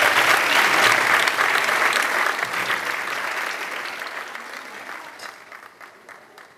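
Audience applauding, the clapping thinning out and fading away over the last few seconds.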